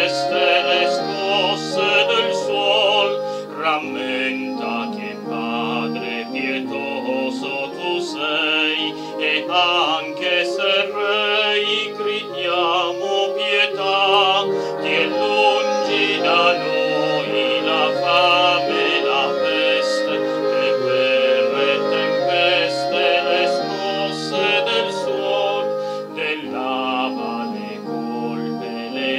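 Slow hymn music: a melody with vibrato over sustained chords.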